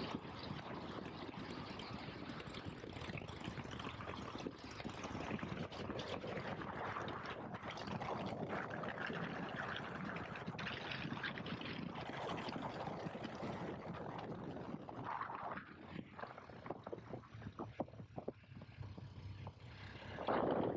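Wind rushing over the microphone of a moving KTM 1290 Super Adventure S, with the bike's V-twin engine running underneath. In the last few seconds the rush eases and turns uneven.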